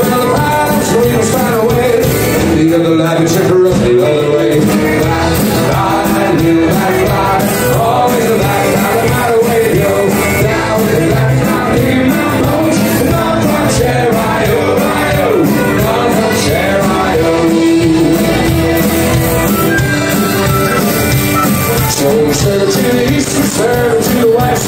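Live folk-rock band playing loud, with fiddle, acoustic guitar, banjo, electric guitar and drums, and singing.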